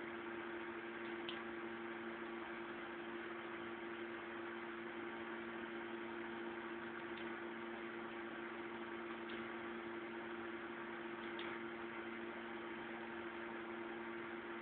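Steady low electrical hum of two tones over an even hiss, with four faint short clicks spread through it.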